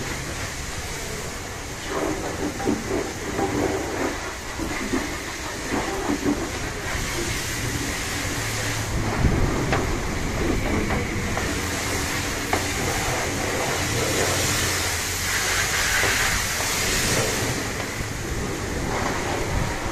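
Long-handled bristle brush scrubbing the soapy wooden side panels of a truck body: repeated swishing, rasping strokes, with a stronger hiss for a few seconds past the middle, over a low steady hum.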